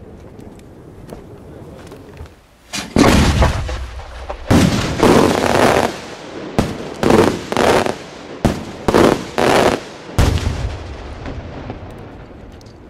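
Aerial multi-salute cylinder fireworks shell bursting overhead: about ten loud, echoing bangs. The first two are about a second and a half apart, then the rest follow quickly, roughly every half second, as the shell's salute breaks go off one after another.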